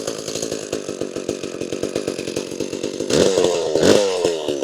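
Homelite Super 2 SL two-stroke chainsaw idling with an even beat, then revved up briefly twice near the end, each time dropping back to idle.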